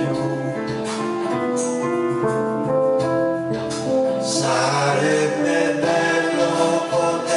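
Pop ballad played live on a Roland E-86 arranger keyboard and a stage piano, sustained chords under a melody. About four and a half seconds in, the arrangement grows fuller and brighter.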